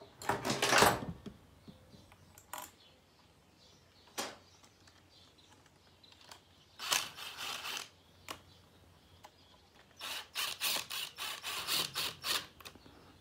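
Cordless drill-driver running in short bursts, spinning the water-pump bolts down into the engine case, with a run of quick repeated bursts near the end. A brief metallic clatter of bolts and tool comes right at the start.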